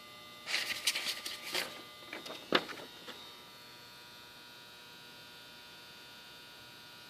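Rustling and a few sharp clicks of things being handled for about the first three seconds, over a steady electrical hum that then carries on alone.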